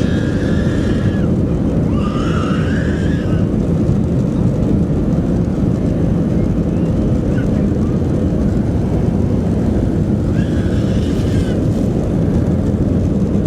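Cabin noise in a Boeing 737-400 under takeoff power: the CFM56 turbofans and the airflow make a steady, loud rumble. A few brief higher sounds rise above it near the start, around two seconds in, and again near the end.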